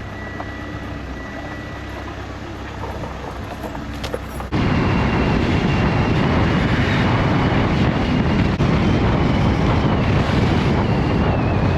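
A vehicle driving: steady road noise inside the cabin, then about four and a half seconds in a sudden jump to much louder, steady rushing wind noise with a faint high whine over it.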